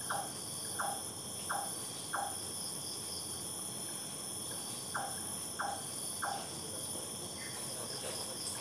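Steady chorus of night insects, crickets, several high trilling tones held without a break. Over it, a short falling note repeats about every 0.7 s, four times at the start and three times about five seconds in.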